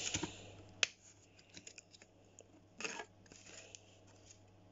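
Faint table-top handling noises: a single sharp click about a second in, a short scrape near three seconds and a few light ticks, as a metal fork is shifted in a plastic ready-meal tray.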